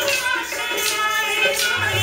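Live Rajasthani folk music for a stick dance: sustained melodic tones with sharp percussive clacks about twice a second, the dancers' wooden sticks striking together in time.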